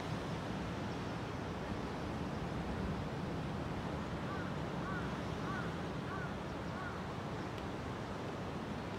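Steady wash of ocean surf breaking on a sandy beach, mixed with wind. About halfway through, a bird gives about five short, thin calls in an even series.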